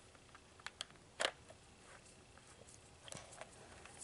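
Faint plastic clicks and taps from a toy screwdriver turning a plastic screw into a toy truck's plastic chassis. There are a few sharp clicks, the loudest about a second in, and a softer cluster near the end.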